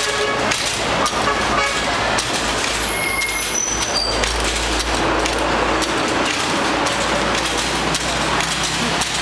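Street traffic: motor vehicles running past, with a heavier low rumble about four seconds in and a few short high beeps just before it.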